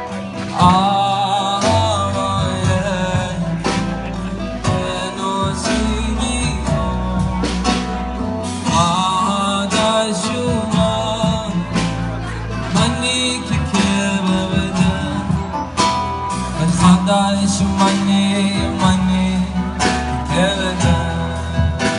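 Live band music: a man singing to acoustic guitar, backed by keyboard, electric guitar and drums.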